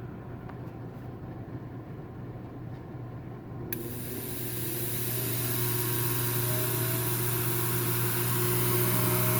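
Airthereal ozone generator's fan restarting on high after a pause: a low hum, then about four seconds in a sudden rush of air that builds over the next two seconds to a steady whoosh. The delayed restart follows a setting change, a pause the owner is unsure is normal.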